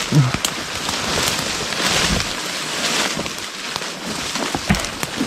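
Dense brush and branches rustling and swishing against people pushing through on foot, in swelling waves with scattered sharp snaps and cracks.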